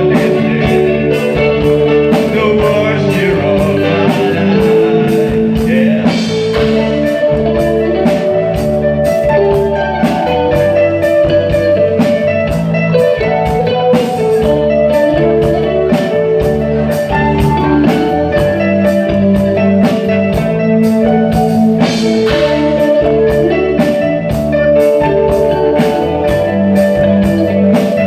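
Live new wave rock band playing: electric guitar, bass guitar, keyboards and drums, over a steady drum beat with held notes.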